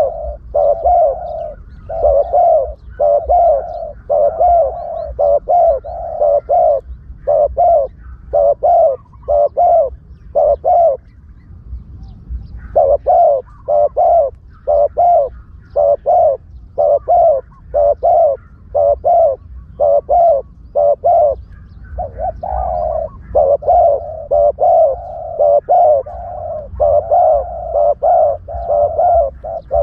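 Spotted dove cooing in a continuous series of short, repeated coo phrases, with a brief pause about eleven seconds in: a lure call of the kind used to draw doves to a trap.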